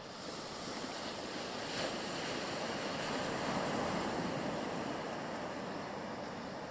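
Sea surf washing on the shore, a steady rush of waves that swells toward the middle and then eases off.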